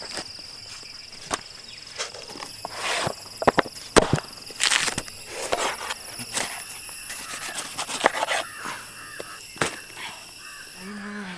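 Knife cutting up jackfruit: irregular chops and knocks of the blade on the rind and board, and short scraping strokes through the sticky flesh and core.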